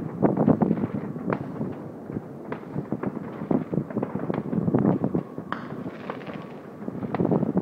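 Many fireworks and firecrackers going off across a wide area, a dense stream of distant, overlapping bangs and pops of varying strength. One sharper crack stands out about five and a half seconds in.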